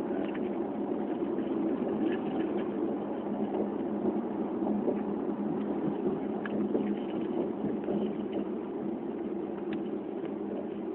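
Chevrolet Camaro SS's V8 engine and tyre noise at a steady cruise, heard from inside the cabin as an even, unbroken drone.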